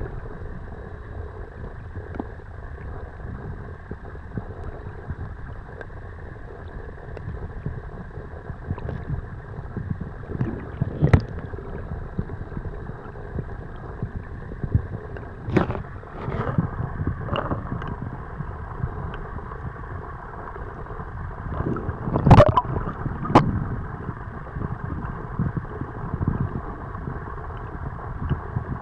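Muffled water sloshing and churning around a camera held just under the sea surface, heard as a steady low wash. A handful of sharp knocks or splashes cut through it, the loudest two close together about three quarters of the way through.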